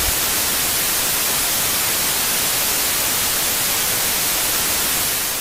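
Television static: a steady hiss of white noise that begins to fade out near the end.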